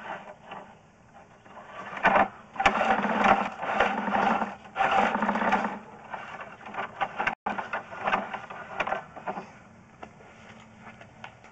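Sewer inspection camera being fed down a sewer line: rapid rattling and scraping of the push cable and camera head, loudest for a few seconds from about two seconds in and again briefly later, over a faint steady hum.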